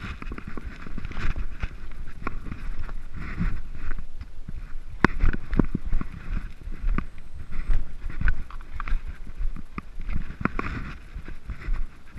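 Mountain bike clattering down a rocky trail: tyres and frame knocking and rattling over stone, with sharp knocks throughout, the loudest about five seconds in, and wind rumbling on the microphone.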